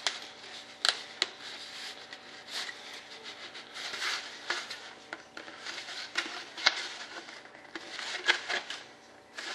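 Thin-walled model-jet intake duct pieces being handled and test-fitted by hand: irregular clicks, taps and scraping rubs of the duct walls against the hands and each other, the sharpest tap just under a second in.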